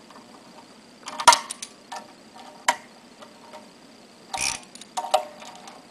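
Metal tool clinks and clicks on the pump's end-plate bolts as they are tightened: a handful of sharp separate strikes, some ringing briefly, the loudest about a second in and again past four seconds.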